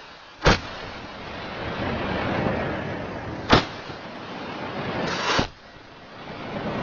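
Three sharp firecracker bangs about three seconds apart, the last one drawn out longer, with a rushing noise that swells in between.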